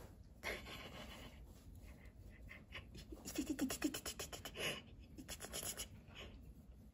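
Pet hedgehog making a quick run of rapid clicks and huffs about halfway through, with softer puffs before and after, as a hand touches its face.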